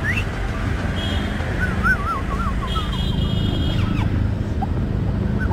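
Harley-Davidson Street Rod 750's V-twin engine idling with a steady low rumble, while high chirping calls and a short warbling call sound over it.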